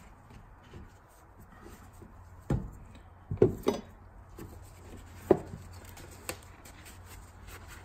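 Handling noises on a wooden workbench: about five short knocks and clunks as a metal fuel filter canister and parts are set down, the loudest a little past the middle, with soft rubbing of gloved hands and a shop towel between them.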